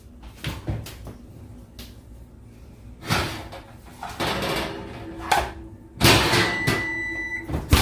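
Oven door being opened and a hot tray pulled out, with scraping, rattling and knocks. A short high steady tone sounds for about a second, then a sharp bang near the end as the oven door is shut.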